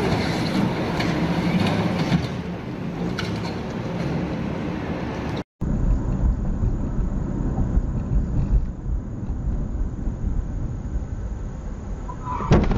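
Street traffic noise, then after a brief dropout about five and a half seconds in, the low road rumble of a car driving as picked up by a dashcam, with a sharp knock near the end.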